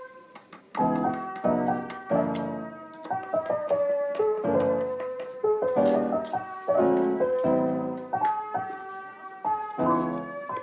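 Background music: a mellow piano-led lo-fi track with chords in a steady beat.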